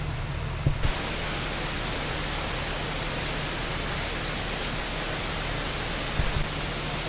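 Steady, even hiss of noise, with a few short low thumps about a second in and again near the end.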